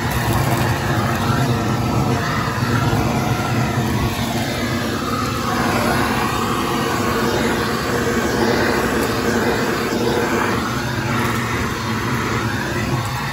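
Small 1.5-gallon, 2-horsepower wet/dry shop vac running steadily, its motor whine and the rush of air through the hose and attachment wavering a little as the nozzle is worked over dirty car carpet.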